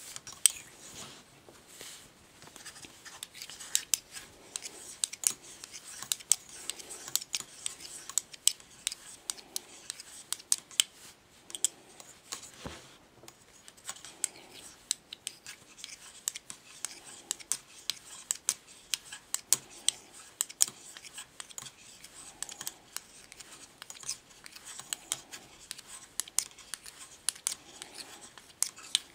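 Metal knitting needles clicking and scraping against each other while rows of plain knit stitches are worked, with sharp irregular clicks several times a second over a soft rubbing of yarn.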